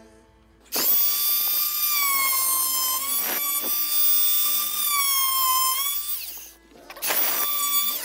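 Chicago Electric variable-speed oscillating multi-tool with a wood-cutting blade plunge-cutting window trim: a loud, high-pitched buzzing whine that starts about a second in and runs for about six seconds, sagging slightly in pitch before it stops. A short second burst of the same whine comes near the end.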